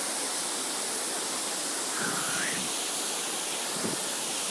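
Belelle waterfall: the steady rush of water falling and splashing, an even hiss at a constant level.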